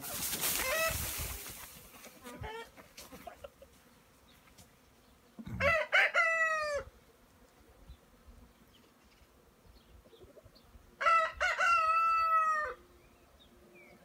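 A rooster crowing twice, each crow about a second and a half long, some five seconds apart. At the start there is a brief rustling scrape as the wooden lid is settled onto the hive box.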